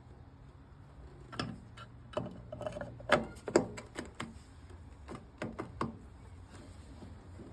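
Lawnmower transmission parts being handled and fitted, giving a run of irregular clicks and knocks. They start about a second and a half in and stop around six seconds, with the two loudest taps near the middle.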